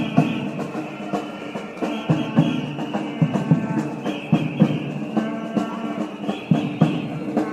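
Music led by drums, with a steady, repeating beat.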